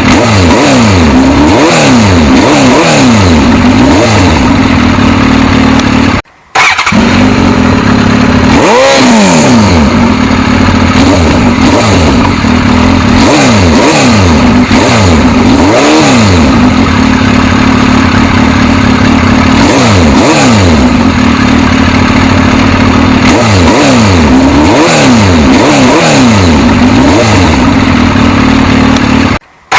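Suzuki GSX-S1000's inline-four engine running loud over a steady drone, revved again and again with throttle blips whose pitch rises and falls. The sound breaks off for a moment twice: about six seconds in and just before the end.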